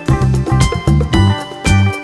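Background music with a steady beat: a bass note about twice a second under plucked, guitar-like notes.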